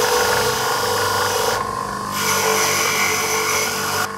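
Small bench grinder's motor running with a steady hum while small rusty steel plane parts are pressed against its spinning wire wheel, a harsh scrubbing hiss as the rust is brushed off. The scrubbing breaks off briefly about halfway, resumes, and stops just before the end while the motor keeps running.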